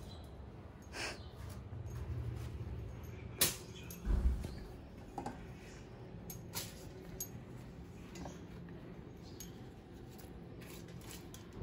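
Aluminium foil rustling and crinkling as puris are wrapped in it, with scattered light clicks and knocks of kitchen handling; a sharp click about three and a half seconds in, followed by a low thump.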